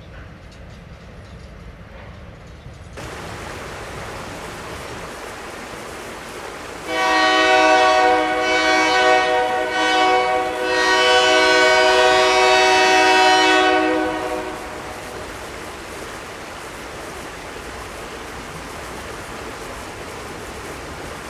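Train horn sounding a multi-tone chord for about seven seconds, with two brief dips, over a steady background hiss.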